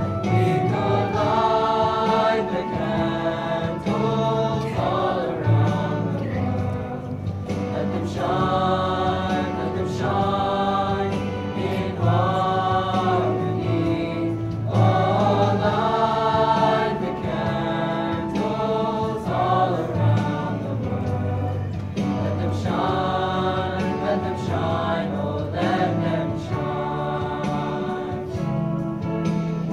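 Mixed youth choir singing together in continuous phrases over steady low notes.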